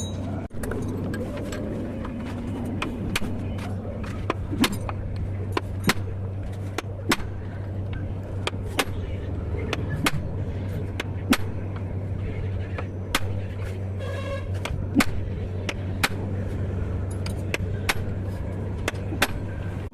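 Irregular sharp knocks and clicks from tool work on a truck's leaf spring, over a steady low hum.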